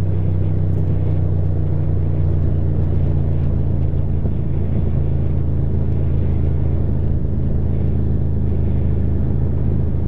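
Ducati motorcycle engine running at steady revs while riding, a constant drone with a rush of noise over it.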